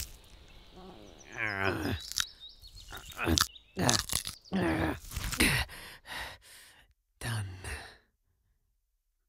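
A voice making wordless sounds: a falling moan, then a string of short grunts and sighs that stops about eight seconds in.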